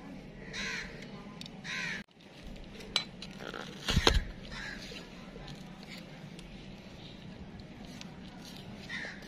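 A crow cawing repeatedly: two clear caws in the first two seconds, then fainter ones later. A couple of sharp knocks come partway through.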